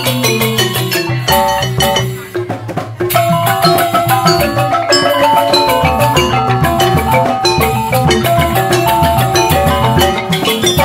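Joged bumbung gamelan: bamboo xylophones (grantang) played with mallets in fast, dense interlocking patterns, over a pulse from kendang hand drums. The playing thins briefly about two seconds in, then comes back in full a second later.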